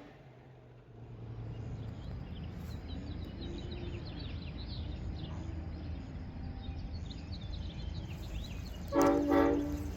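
Quiet outdoor ambience with birds chirping over a low steady rumble. About nine seconds in, a Nathan M5 five-chime locomotive air horn gives a short toot with two quick pulses.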